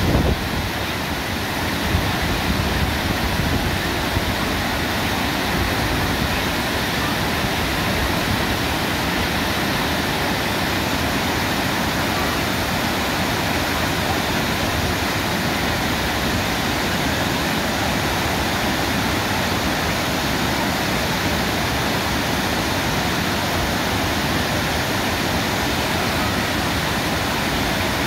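Waterfall: the steady rush of falling water, a constant full-range wash of noise with no change in level.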